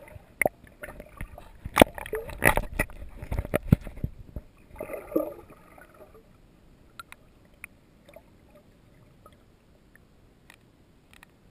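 Water sloshing and knocking against a submerged GoPro housing, heard muffled from underwater. There are frequent sharp knocks and thumps for the first few seconds, then it goes much quieter with only scattered faint ticks.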